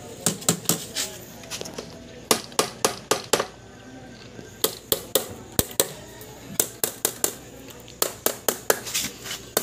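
Ball-peen hammer tapping on the metal core and header edge of a car radiator: a run of sharp, light metallic taps, a brief lull about three and a half seconds in, then more taps.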